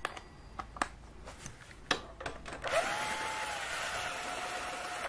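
A few clicks and knocks of metal tools, then about two and a half seconds in a cordless drill starts up and runs steadily, its pitch rising and then holding, as it loosens a cylinder head bolt on a Briggs & Stratton riding-mower engine.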